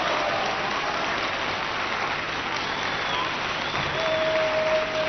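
Audience applauding in a steady wash of clapping, with a faint held tone under it that grows a little louder about four seconds in.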